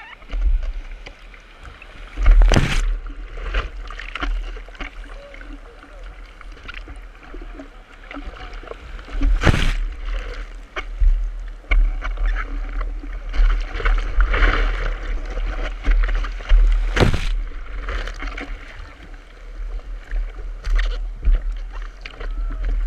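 Seawater rushing and splashing against a surfboard and the action camera mounted on its nose as the board rides through whitewater, over a constant low rumble. Three loud splashes stand out, about two and a half, nine and a half and seventeen seconds in.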